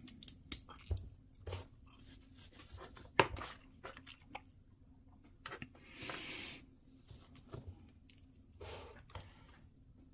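Small plastic model-kit parts clicking and rubbing as they are handled and pressed together, with one sharper click about three seconds in and a brief scraping rustle about six seconds in.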